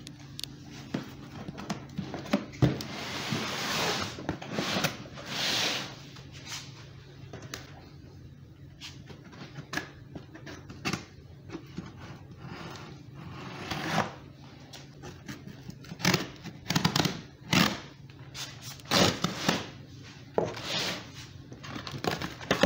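Folding knife slicing through packing tape along the seams of a cardboard box, in irregular scraping strokes with sharp clicks and rustling as the cardboard is handled.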